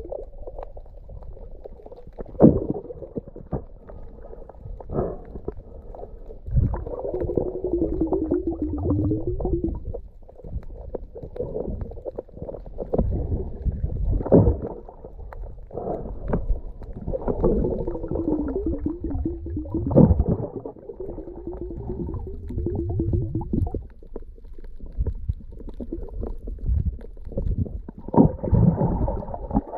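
Muffled underwater sound through a submerged camera: low gurgling and sloshing water with scattered knocks, and a wavering low hum at times.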